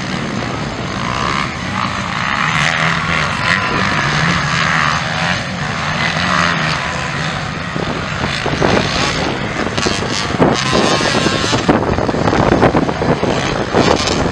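Several motocross bikes racing on a dirt track, their engines revving up and down through the gears in a continuous rising and falling drone.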